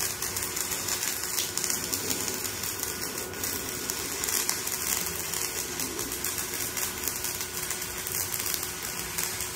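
Stick-welding arc crackling and sizzling steadily as a 3.2 mm electrode burns in one continuous run, the inverter welder set to stick mode at full amperage.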